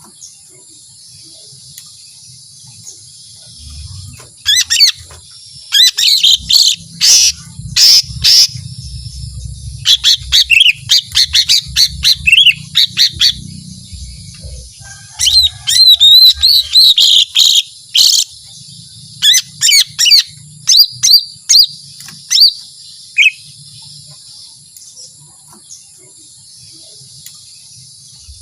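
Cucak ijo mini, a small leafbird, singing in loud bursts of rapid, high-pitched chirps and trills, the long 'shot' phrases that hobbyists prize, with short pauses between bursts. The first few seconds and the last few are quiet.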